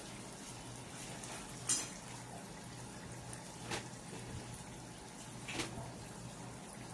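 Washing machine running with water sloshing and a steady low hum, and a sharp tick recurring about every two seconds: the abnormal noise the machine is making.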